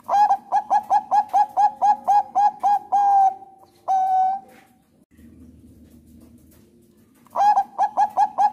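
Zebra dove (Thai 'perkutut bangkok' strain) singing: a fast run of short cooing notes, about four a second, ending in two longer drawn-out coos. After a pause of about three seconds, the run starts again near the end.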